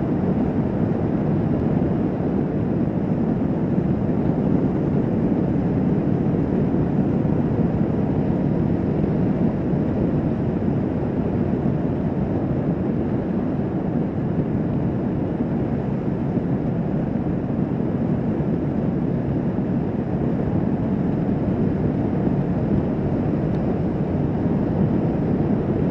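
Kawasaki Vulcan S 650's parallel-twin engine running steadily at cruising speed on the highway, blended with the even rush of wind and road noise.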